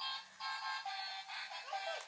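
A children's electronic toy plays a tinny synthesized tune of steady notes stepping up and down in pitch, with a short break about half a second in.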